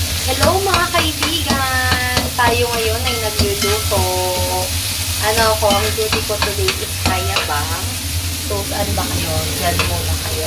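Food frying in a pan, a steady sizzle, with a low hum beneath it.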